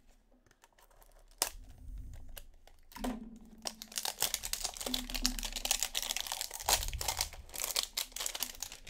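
Clear plastic shrink-wrap being torn and crumpled off a baseball card hanger box: a sharp click about a second and a half in, then dense crackling from about three seconds in until near the end.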